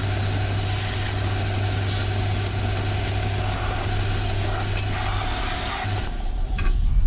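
Belt finisher running and grinding a metal wedge: a loud, steady grinding noise over a motor hum. The hum stops about six seconds in and the grinding dies away.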